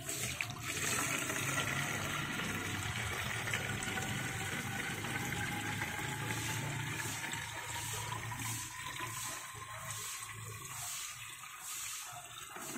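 Water-based fertilizer solution poured from a container through a plastic funnel into a plastic pump sprayer tank: a steady pour whose pitch rises slowly as the tank fills.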